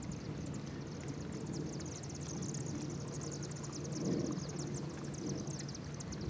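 Outdoor ambience of rapid, high-pitched chirping from small birds over a low steady hum, with a soft rumble that swells about four seconds in.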